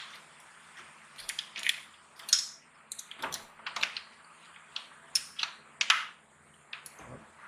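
Irregular clicks, rattles and short scrapes of a throttle cable being worked through a 50cc scooter's plastic body panels by hand.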